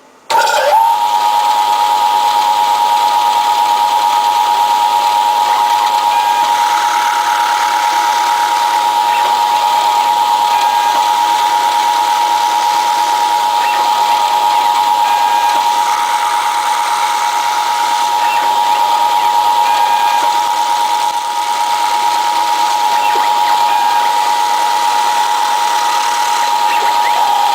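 Small CNC spindle motor spinning up at the start, then running with a steady high whine over a hiss while milling a circuit board; it dips briefly about three-quarters of the way through.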